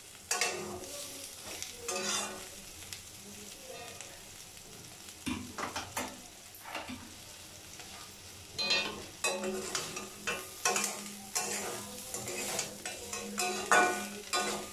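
Drumstick (moringa) pods stir-frying in a metal kadai: a flat metal spatula scrapes and turns them in irregular strokes over a low sizzle, with a quieter pause of stirring near the middle. The pods are nearly fried dry, so the sizzle is light.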